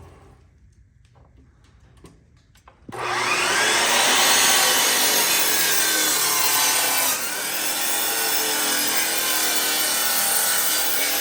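Electric power saw starting up about three seconds in, its motor winding up, then cutting steadily, with a slight drop in level about seven seconds in.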